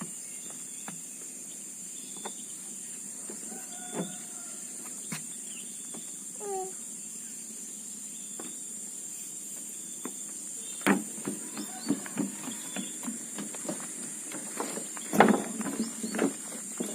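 Steady high-pitched insect drone, with scattered clicks and knocks that come more often and louder in the second half.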